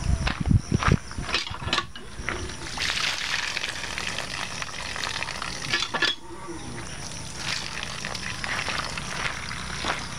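Water gushing from a cast-iron hand pump and splashing over hands as the handle is worked, with a few sharp knocks in the first two seconds and another about six seconds in.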